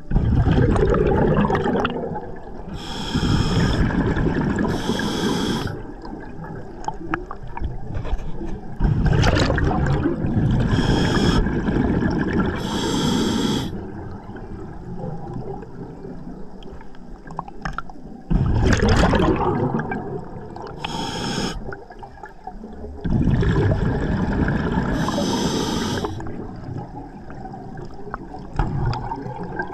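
Scuba diver breathing through a regulator underwater: several breaths a few seconds apart, each a hiss on the inhale and a burst of rushing, gurgling exhaust bubbles.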